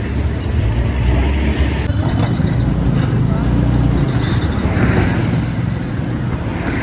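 A steady low engine rumble, with voices in the background.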